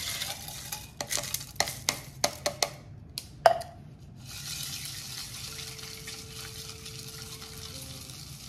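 Liquid poured into a glass over ice, then ice cubes clinking against the glass several times, ending in one sharp ringing glass clink about three and a half seconds in. After that, a steady soft hiss, with a faint steady tone for a couple of seconds.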